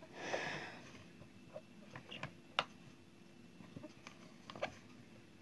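A hand packing peppers and tomato slices into a ribbed plastic jar for pickling. There is a brief rustle at the start, then a few scattered light clicks and taps against the plastic, the sharpest about halfway through.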